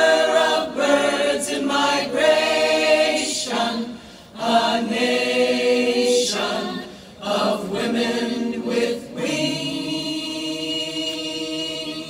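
Choir singing a cappella in close harmony, phrases of long sustained chords. The last phrase is held as one long chord near the end.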